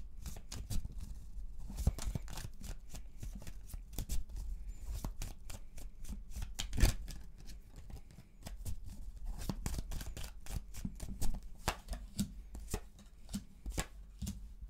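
A deck of tarot cards shuffled by hand: a continuous patter of cards slapping and sliding against each other, with a couple of sharper knocks, about seven and eleven seconds in.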